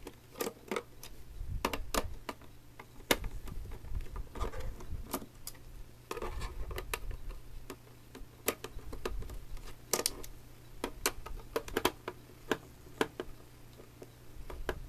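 Irregular sharp clicks and handling noise of a Phillips screwdriver turning screws out of a plastic telephone base.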